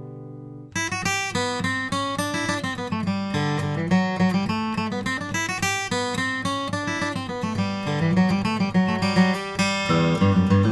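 Martin M-36 steel-string acoustic guitar being played: a chord rings and fades, then under a second in the playing starts again with a busy passage of quick notes and chords.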